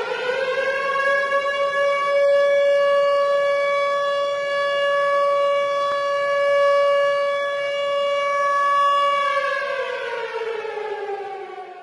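Tornado siren sounding. Its tone climbs in pitch over the first couple of seconds, holds a steady pitch, then winds down, falling in pitch and fading out near the end.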